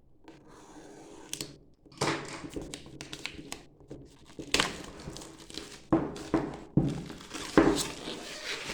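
Keyboard packaging being handled and opened by hand: irregular rustling and crinkling of cardboard and wrapping, with sharp knocks and thuds as the box is moved.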